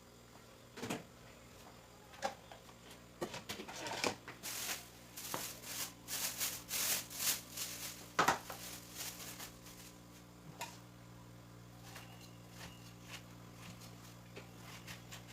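Kitchen items being handled: scattered knocks and clatters, with several seconds of rustling in the middle. A steady low hum runs underneath and stands out once the handling quietens in the second half.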